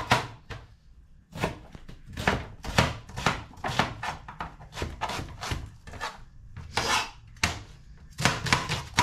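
Kitchen knife chopping onion on a plastic chopping board: quick strokes at about three or four a second, pausing briefly about a second in and again near the end.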